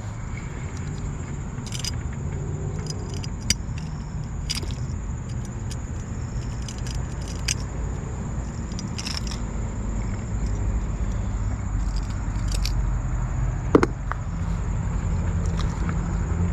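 Scattered sharp clicks and light metallic clinks of hand handling, the loudest near the end. They sit over a steady low rumble and a constant high insect drone.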